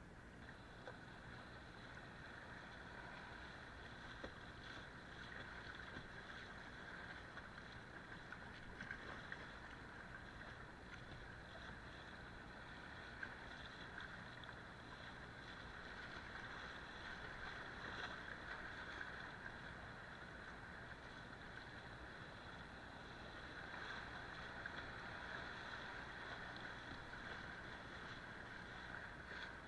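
River water rushing and splashing around a kayak's bow as it is paddled down a fast, rippling stretch of river, with small splashes from the paddle. The rush grows a little louder midway and again toward the end.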